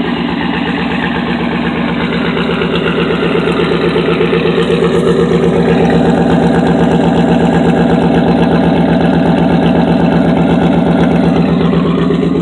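Dodge Ram pickup's engine idling steadily through a loud exhaust, with a fast, even pulse. It gets louder about halfway through as the sound is taken close to the tailpipe.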